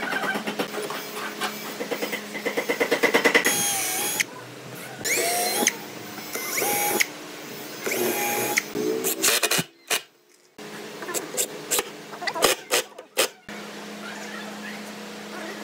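Woodworking tools at work in a string of short cuts: a rapid rhythmic pulsing from a power tool, then a motor whining up and down, then scattered sharp knocks and clicks, with a brief drop to near silence about two-thirds of the way through.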